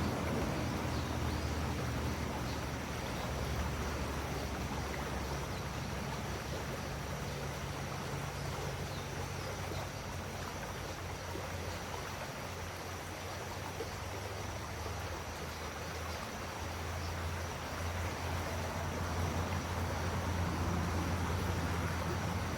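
Steady rushing of a river's flowing water, with a low rumble underneath that swells and fades, and a thin steady high tone throughout.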